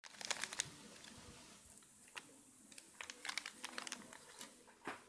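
Light plastic clicks and crinkles from a clear plastic bag being handled and shaken out: a quick run of clicks in the first second, then scattered single clicks.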